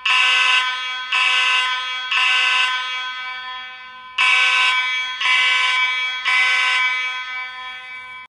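Space Age AV32 fire alarm horn sounding the temporal-three evacuation pattern: three short blasts about a second apart, a pause, then three more. Each blast trails away rather than stopping dead.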